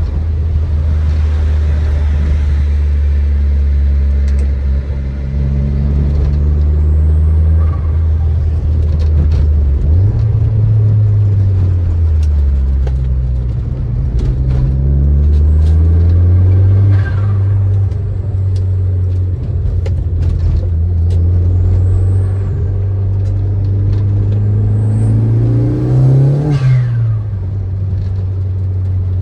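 Turbocharged 1.8-litre 20-valve four-cylinder engine of a stage 3 tuned Audi A3, with a 3-inch stainless steel exhaust, running at a steady low pitch while driving, revving up and back down about ten seconds in and again near the end. A few falling whistles sweep down from high to low along the way.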